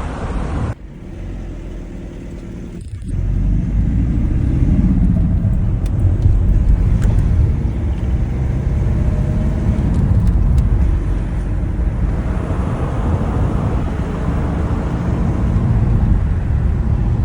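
Mercedes OM651 2.2 litre four-cylinder diesel running, a steady low rumble with no hiss or high chirp: the exhaust manifold leak is cured by tightening the loose manifold bolts.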